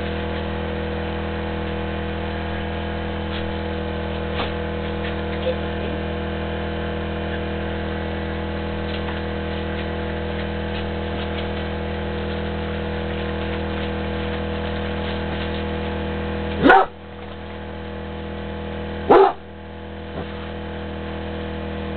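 Dachshund barking twice, two sharp single barks about two and a half seconds apart near the end, over a steady mechanical hum.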